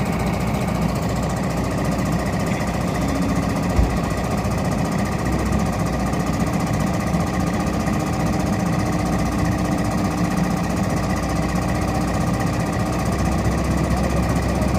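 Hydraulic excavator's diesel engine running steadily with a rattling clatter as the machine works, with a single short knock about four seconds in.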